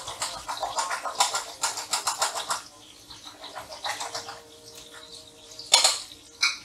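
Eggs being beaten in a metal bowl: a utensil clinking quickly against the bowl for about two and a half seconds, then a few scattered taps and one louder clank near the end.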